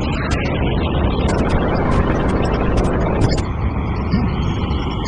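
Rocket engine at full thrust during a launch ascent: a loud, dense, deep rumble, overlaid by many sharp rattling clicks.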